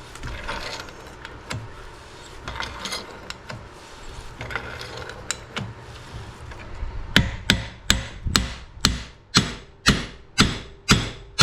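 Hammer blows on steel, about two a second from about seven seconds in, after light clinking of tools. This fits driving the hydraulic cylinder's head nut tighter.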